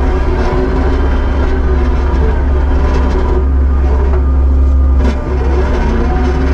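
Kubota SVL75-2 compact track loader's diesel engine running steadily under work, with a couple of short clanks from the machine.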